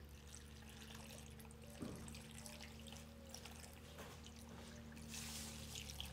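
White wine poured from a glass jug over fish and vegetables in a baking dish: a faint trickle and splash, a little louder near the end, with a soft knock about two seconds in.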